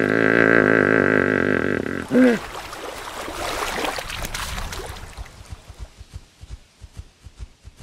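A long animal call with a wavering pitch, then a short call that drops in pitch. After that comes a few seconds of splashing water, then a steady run of heavy footsteps, as the animated hippopotamus leaves the water and walks.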